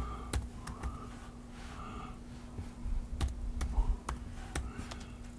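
Typing on a MacBook Air laptop keyboard: scattered key clicks at an uneven pace, over a faint steady hum.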